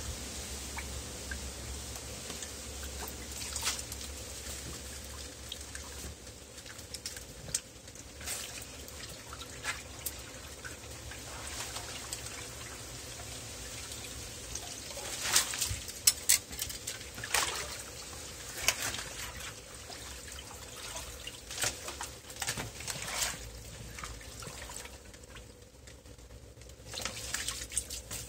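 Water trickling and dripping, with scattered small splashes and sharp clicks, the loudest cluster about halfway through.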